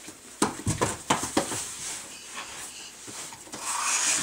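Cardboard box bumped and scraped as a baby crawls into it: a quick run of knocks in the first second and a half, then rustling and scraping near the end.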